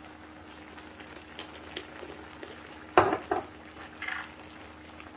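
White bean and carrot stew simmering and sizzling in a frying pan. About three seconds in come two sharp knocks in quick succession, with a softer one about a second later.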